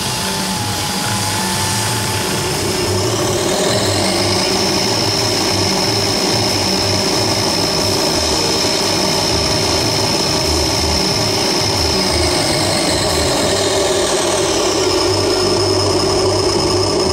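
Model snow blower's motor whining steadily at high speed, rising in pitch a few seconds in and falling again near the end.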